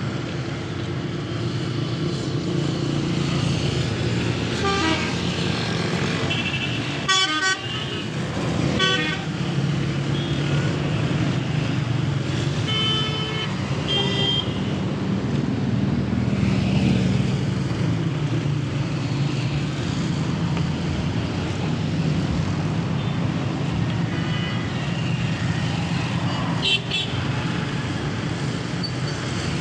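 Road traffic: a steady engine drone of passing and idling vehicles, with horns tooting several times, clearest about a third and halfway through.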